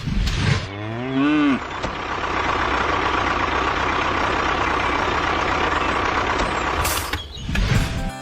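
A short, low animal call rising then falling in pitch about a second in, followed by a steady rushing noise with a faint even hum for several seconds.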